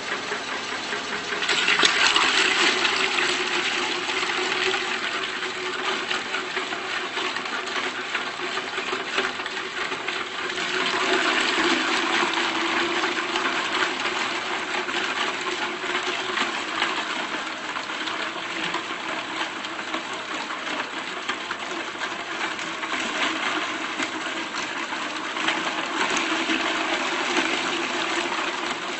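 Industrial electric meat and bone grinder running, grinding raw chicken and fish with their bones: a steady motor hum under rough grinding noise. The grinding grows louder about two seconds in and again around eleven seconds.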